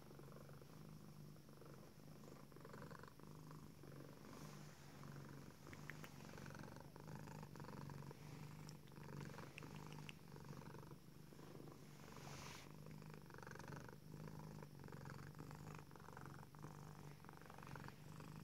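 A tuxedo cat purring, quiet and steady, the purr swelling and easing with each breath roughly once a second: a contented cat.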